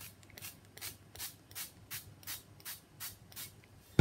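A pump spray bottle of Frylight low-calorie cooking oil spritzing into a metal roasting tray: about ten quick, even squirts in a row, roughly three a second.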